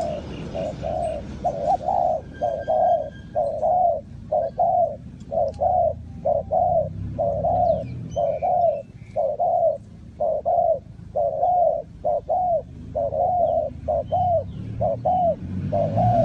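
Spotted dove cooing: a long, steady run of short mellow coos, about two a second.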